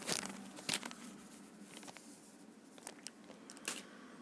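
Clear plastic bag around a model kit's clear-parts sprue crinkling and rustling as it is handled, with a few sharp crackles: one at the start, one about a second in and one near the end.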